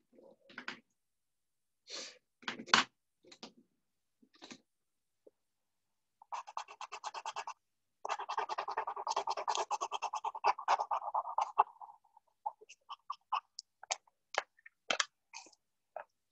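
Coloring in on paper: rapid back-and-forth scribbling strokes, about ten a second, in a short stretch about six seconds in and a longer one from about eight to twelve seconds. Scattered light taps and clicks come before and after.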